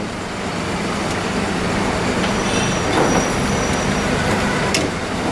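Steady machine noise with a low hum, and a couple of light clicks about three seconds in and near the end.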